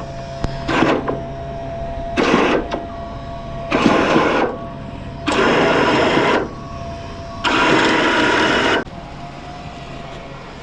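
Powered winch on a sailboat's in-mast mainsail furling gear, run in six short bursts that grow longer one after another, from a fraction of a second to about a second and a half, as the mainsail is furled into the mast.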